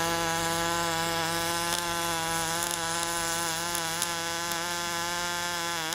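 Pulsed MIG welding arc running steadily while a socket is welded onto a steel pipe: an even, buzzing hum over a constant hiss.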